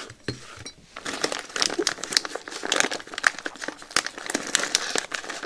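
Clear plastic bag crinkling and crackling as it is handled, with a circuit board inside, after a couple of light knocks at the start.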